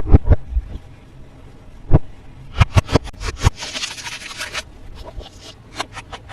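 Toy packaging handled during an unboxing: a series of sharp clicks and taps of plastic, with a rustling scrape of packaging lasting about a second midway.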